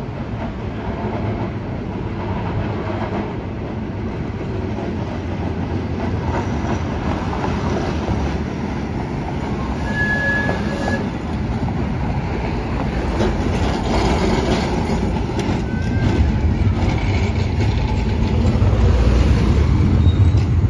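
Heritage streetcar rolling toward the camera and passing close, its wheels rumbling and clacking on the rails, louder near the end, with car traffic going by. A short high squeal sounds about ten seconds in.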